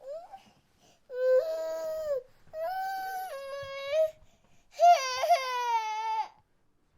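Infant crying: a short rising wail, then three long cries with brief breaths between them, the last one sliding down in pitch as it fades.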